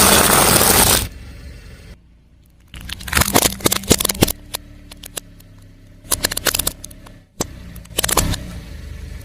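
A car tyre rolls over crunchy objects and crushes them, giving clusters of sharp cracking and crackling, three bursts in all, over a faint low engine hum. A loud rushing noise fills the first second and cuts off.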